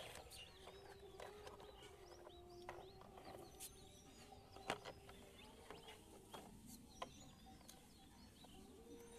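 Faint background of small birds chirping, with a few light clicks and taps scattered through it, the sharpest about halfway through.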